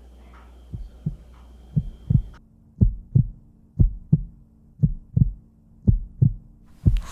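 Heartbeat sound effect: paired lub-dub thumps about once a second, starting under a second in and growing louder over the first few beats.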